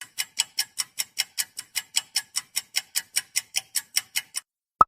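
Countdown-timer ticking sound effect: sharp, even clock-like ticks about five a second, stopping after about four and a half seconds, followed by one brief high tone near the end.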